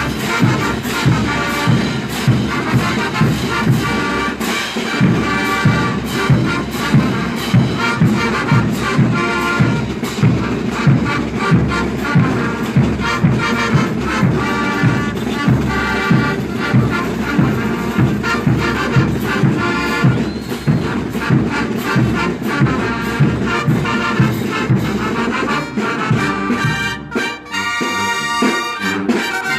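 Banda brass band playing, brass over a steady low beat of about two pulses a second; the sound thins out near the end.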